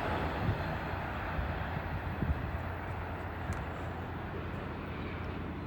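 Train rolling past on the rails, with a steady rumble and wheel noise that slowly fade as it moves away.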